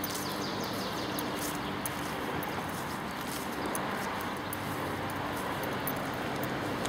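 Steady outdoor background noise with a low hum, a few faint bird chirps near the start, and scattered light clicks.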